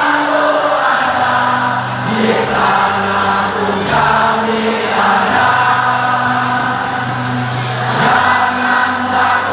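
Large crowd of football supporters singing a chant together in the stands, long held notes that change pitch every second or so.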